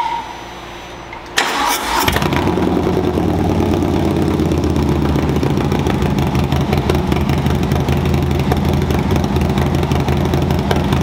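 Harley-Davidson Milwaukee-Eight V-twin, built out to 131 cubic inches with a Screaming Eagle stage 4 kit, starting for the first time after the build. The starter cranks about a second and a half in, the engine catches half a second later, and it settles into a loud, steady idle.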